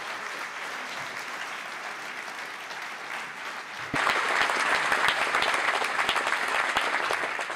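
Audience applauding, rising noticeably louder about four seconds in.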